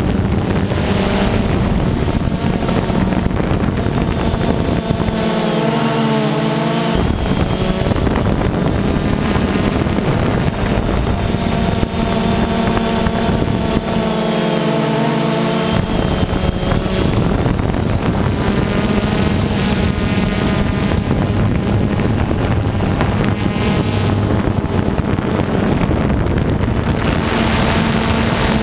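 Multirotor drone's electric motors and propellers buzzing steadily, with wind rushing on the onboard microphone. The motor pitch shifts briefly twice, about six and fifteen seconds in.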